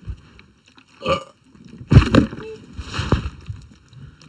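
A person burping several times in a row, the biggest burp about two seconds in.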